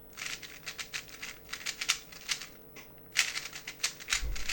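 A 3x3 speedcube being turned fast while an algorithm is executed: rapid plastic clicking and rattling in two quick runs with a short pause near the middle.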